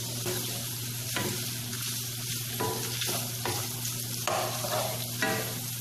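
Diced bacon and Portuguese linguiça sausage sizzling as they fry in a pan, with a wooden spoon scraping through them every second or so as they are stirred.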